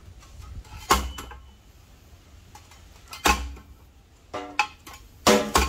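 Sharp metallic clanks of tools and pipe striking one another as a deep-well pipe is worked into the ground by hand, some with a short ringing after: one about a second in, another past three seconds, and two in quick succession near the end.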